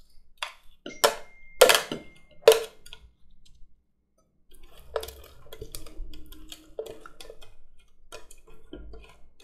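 A metal spoon scraping a chopped vegetable mix out of a plastic food processor bowl into a glass bowl, with four sharp knocks in the first two and a half seconds. After a moment of silence come quieter scraping and light clicks.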